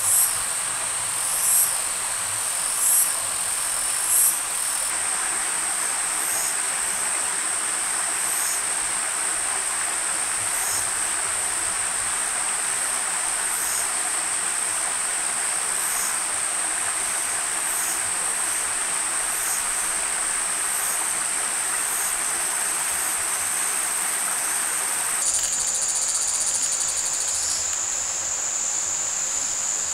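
Forest insects droning steadily at a high pitch, swelling loudly about every second and a half for the first few seconds, with a soft hiss underneath. About 25 seconds in, the drone drops slightly in pitch.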